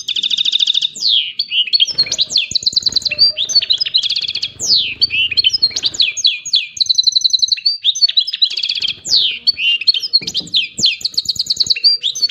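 Continuous caged finch song from a canary and European goldfinch pair: long rolls of rapid repeated notes alternating with quick down-sweeping whistles. Softer wing flapping and scuffling join in from about two seconds in, as the goldfinch tries to mount the canary.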